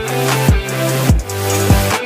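Background music with an electronic beat: a deep kick drum that drops in pitch about every half second, over a held bass line and a melody.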